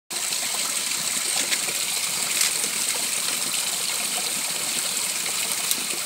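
Small rock waterfall running low, a thin stream of water trickling and splashing over stone ledges: a steady hiss with faint scattered droplet splashes.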